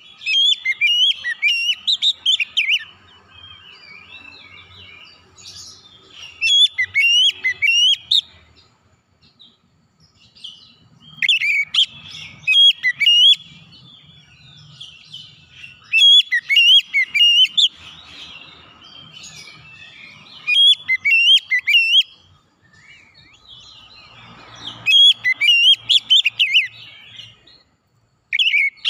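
Oriental magpie-robin singing: six loud bursts of quick, varied whistled and chattering phrases, each two to three seconds long, with short pauses between.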